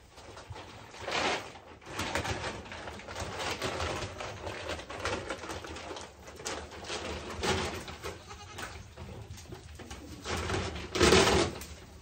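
Goats bleating at feeding time, over the continuous rustle of straw and feed being raked and poured. The loudest burst comes near the end.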